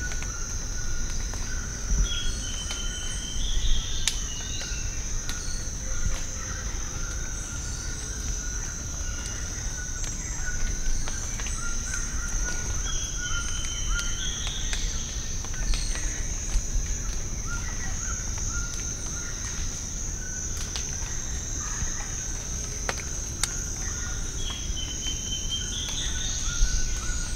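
Tropical forest ambience: a steady high-pitched insect drone with a lower steady insect trill beneath it, and a short rising bird call repeating three times, about every eleven seconds. Faint low rumble and a few soft clicks underneath.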